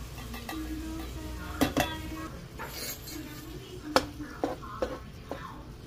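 Canned diced tomatoes emptied into a skillet of browned ground beef, then spread with a spoon: scraping and clinking of can and spoon against the pan, with several sharp knocks, the loudest about four seconds in.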